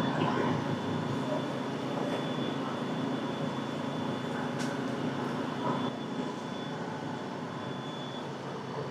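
Boat engine running steadily, a low even drone with a faint high whine over it.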